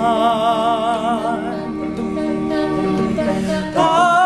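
Male a cappella group singing: the lead voice holds a note with vibrato over sustained backing chords, then comes in louder on a new held note near the end.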